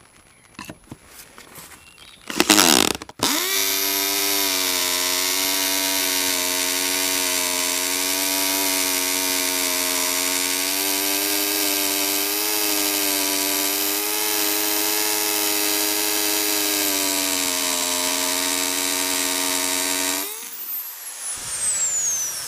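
Electric drill boring into a stripped bolt in an inline skate frame. After a few clicks and a short burst, it runs steadily at one pitch for about seventeen seconds, then cuts off and its whine falls away as it spins down.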